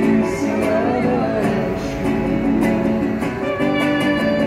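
Street buskers performing: an acoustic guitar strumming chords under a sung melody with held, wavering notes.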